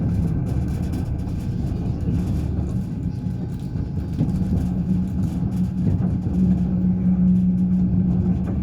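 Passenger train running on the rails: a steady rumble of wheels with faint clicks, and a steady low hum that builds from about halfway through and is strongest near the end.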